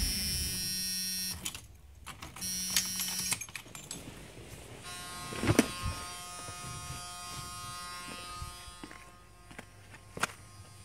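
Electric buzzer in a school bus cab sounding twice, each time for about a second with about a second between, then a fainter steady electric buzz for a few seconds with a sharp click partway through.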